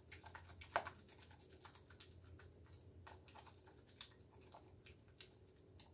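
A small spatula beating sourdough starter (flour and water) in a ceramic bowl to work out the lumps: faint, quick, irregular clicks and taps against the bowl, one a little louder just before a second in.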